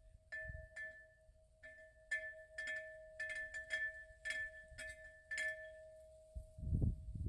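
Wind chime ringing in the breeze: one ringing tone holds while a higher note is struck many times at uneven intervals. A low rumble comes in near the end.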